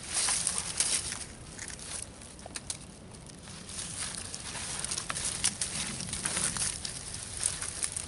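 Bark being torn and peeled by hand off a fallen tulip poplar branch: a crackling, tearing rustle with many sharp snaps. It is loudest in the first second or so and again from about four to seven and a half seconds in.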